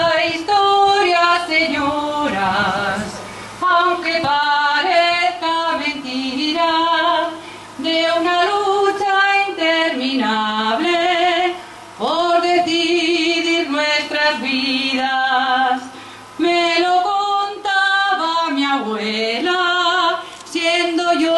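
A woman's solo voice singing a jota through a microphone, holding long wavering notes in phrases broken by brief pauses for breath.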